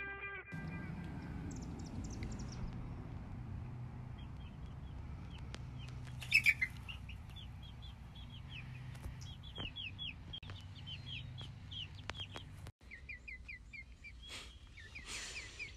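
Young chickens peeping: a steady run of short, falling chirps, several a second, over a low steady hum. A brief loud noise comes about six seconds in.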